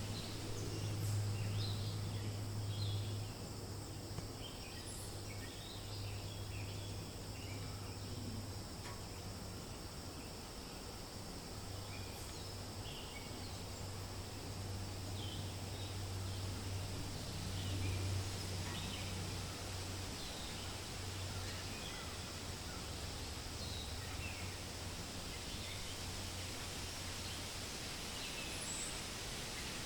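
Forest ambience: a steady hiss of wind in the leaves over a steady low hum, with scattered short bird chirps, busiest in the first ten seconds or so, and a faint steady high insect-like drone.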